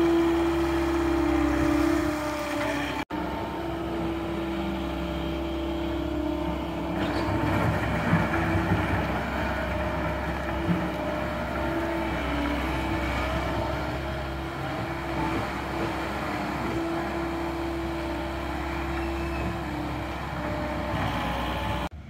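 John Deere 325G compact track loader's diesel engine running steadily under load as the machine pushes and grades gravel, with a constant engine tone. The sound drops out for an instant about three seconds in.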